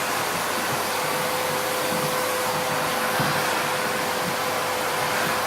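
Vacuum cleaner running steadily: a continuous rushing hiss with a steady whine.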